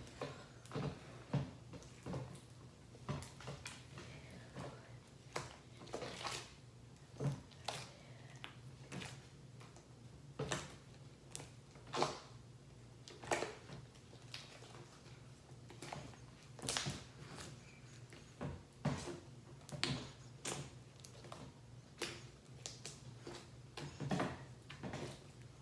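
Homemade slime being worked by hand, giving irregular short sticky clicks and snaps, several a second at times.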